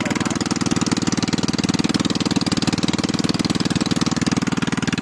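Small single-cylinder air-cooled engine of a homemade tracked crop sprayer running steadily, its exhaust beating at a fast even rhythm.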